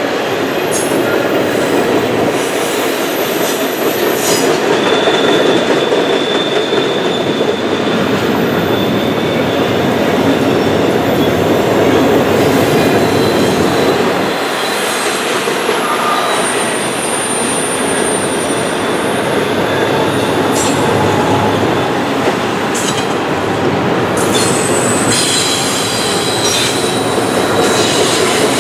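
Freight cars of a long intermodal train rolling steadily across a trestle bridge, the wheels rumbling on the rails. Thin high wheel squeals come and go, and there are a few sharp clanks.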